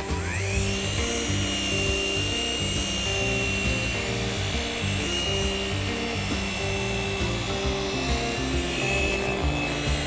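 Handheld electric orbital polisher spinning up with a rising whine about half a second in, then running steadily as its pad works over the aircraft's painted cowling, mixed with background music.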